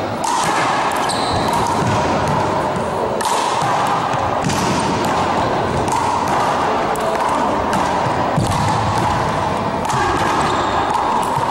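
One-wall handball rally: a small rubber handball struck by hand and hitting the wall and the hardwood gym floor, making sharp hits every half second to a second. A steady background noise fills the hall beneath the hits.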